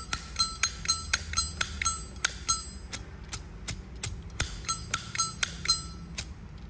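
A Zippo lighter's hinged lid being flicked open and snapped shut again and again, about four or five clicks a second with a short pause midway. Each click rings with a clear bell-like tone, the 'bell sound' that collectors prize in a good Zippo case.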